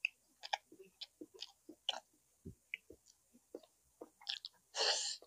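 Close-miked chewing of braised pork leg and rice: a run of wet mouth clicks and smacks, with a brief louder rushing noise near the end.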